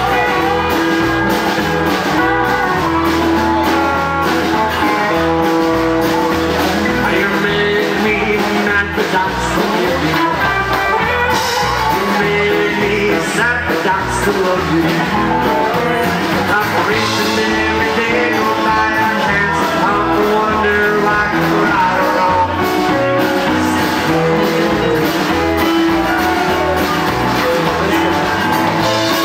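Live rockabilly band playing: upright double bass, guitar and keyboard.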